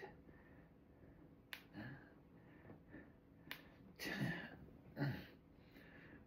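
A man breathing hard with puffed exhales while pressing dumbbells overhead, the strongest puffs about two thirds of the way through. Two sharp clicks come about two seconds apart.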